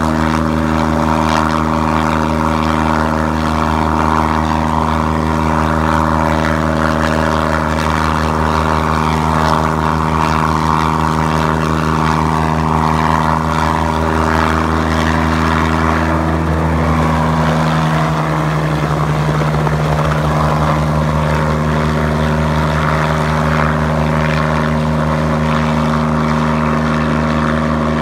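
Kasatka 505 light helicopter hovering low: a steady drone of rotor and engine made of several held tones, which waver briefly about two-thirds of the way through as it moves off.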